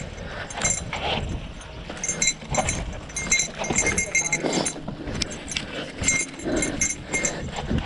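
Bicycle ridden over a rough, rocky trail: a steady low rumble of tyres and wind on the microphone, broken by repeated short clusters of high-pitched squeaks.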